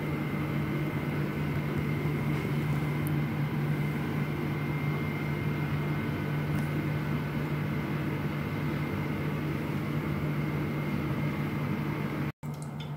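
Steady low mechanical hum with a thin, constant high tone above it, as from a motor or appliance running; it drops out for a moment near the end.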